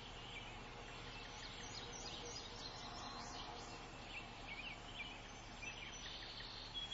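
Faint birdsong: many short chirps and twitters from several small birds, scattered over a low steady background hiss.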